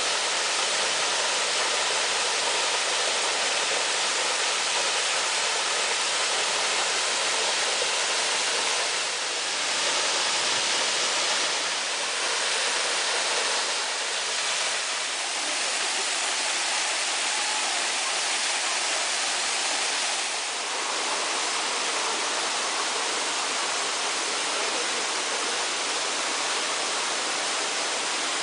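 Waterfall: a steady rush of falling water, shifting slightly in level twice.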